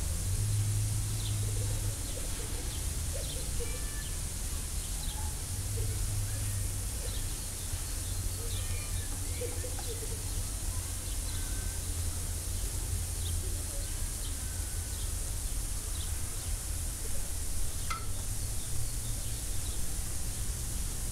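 Broccoli, green beans and sliced sausage sizzling in a frying pan while being stirred, a steady hiss over a constant low hum, with short high chirps scattered throughout and one sharp click near the end.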